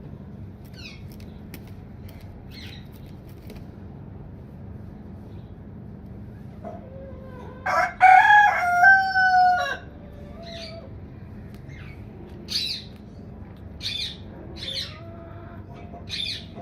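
Aseel rooster crowing once, a long crow of about two seconds starting about eight seconds in, its pitch stepping up and then down. Short high chirps come and go before and after, over a steady low hum.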